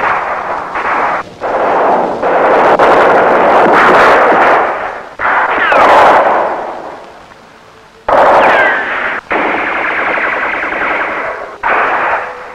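Gunfire in long, rattling volleys of automatic fire, broken by short gaps. Twice a falling whine cuts through.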